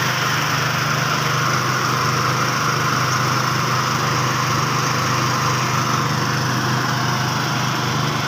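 Engine-driven rice threshing machine running steadily: a small engine's even hum under a continuous whirring noise, with no change in speed.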